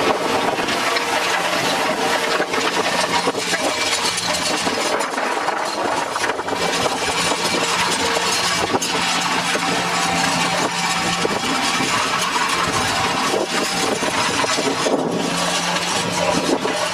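Tractor engine running steadily with a constant hum, under a dense, even hiss of machine noise.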